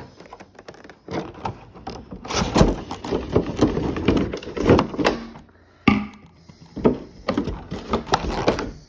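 Plastic water bottle and its cardboard box being handled: irregular knocks, clicks and rustling as the bottle is taken out of its packaging, with a sharp click about six seconds in.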